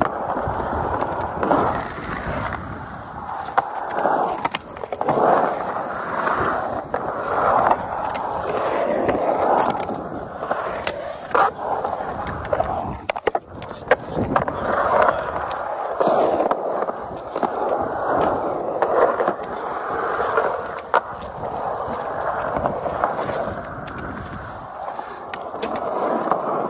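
Skateboard wheels rolling over concrete, swelling and fading in waves as the board carves through the bowl, with a few sharp clacks along the way.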